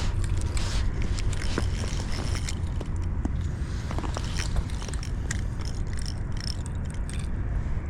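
Irregular clicks and scrapes from an ice-fishing rod and reel being worked while a big trout fights on the line, over a steady low rumble.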